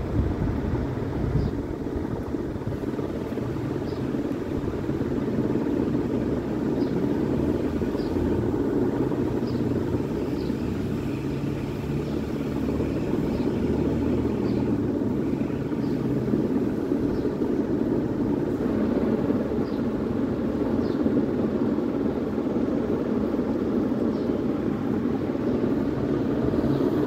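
Steady low rumbling background noise, with faint short high ticks every second or two.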